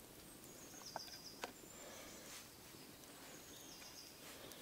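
Quiet outdoor ambience with a bird giving short, high, stepped chirps twice, and two small clicks about a second in.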